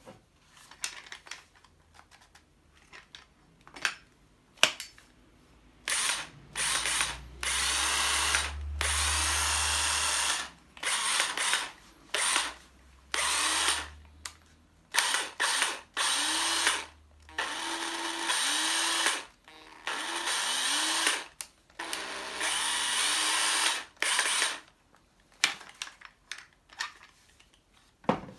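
Cordless drill-driver motor run in a dozen or so short bursts, the trigger pulled and released each time, spinning up and winding down between them, as a used tool is tested to see if it still runs. Clicks of handling come before and after the runs.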